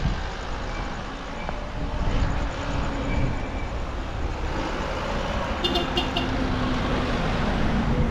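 Road traffic going by, a steady noisy rumble, with two short high tones about six seconds in.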